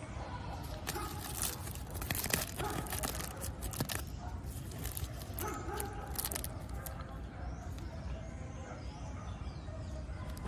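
Crinkling of a chocolate truffle's plastic wrapper as it is handled, unfolded and flattened, with a dense run of crackles in the first seven seconds and fewer after, over a steady low rumble.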